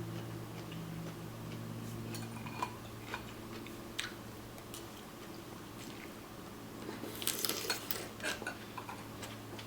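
A person eating at close range: chewing, with scattered light clicks and a short run of crackling about seven seconds in, over a steady low hum.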